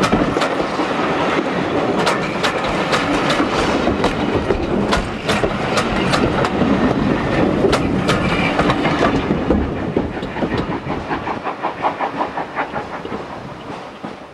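Passenger coaches of a steam-hauled train rolling past at close range, their wheels clicking over the rail joints with a heavy rumble. About nine seconds in, the last coach passes and the clicking fades away as the train draws off.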